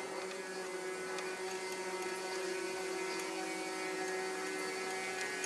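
A steady electrical hum with a buzzy ring of higher overtones, level throughout, with a few faint ticks.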